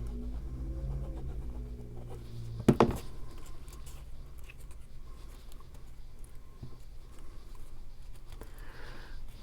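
Cardstock pieces being handled and pressed together while gluing a paper box card, with faint rustles and small taps. A sharp double click sounds about three seconds in. A faint low hum runs under the first two seconds.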